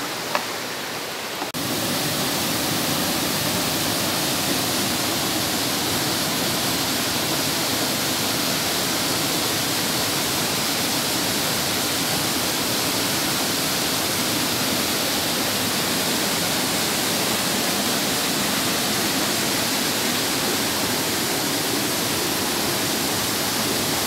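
Waterfall and stream water rushing in a steady, even hiss, which grows louder about a second and a half in and then holds.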